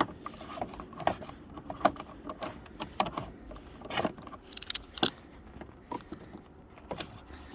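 Hand work on a minivan's taillight: sharp clicks and knocks roughly once a second, with light rattling between them, as the taillight assembly is worked loose.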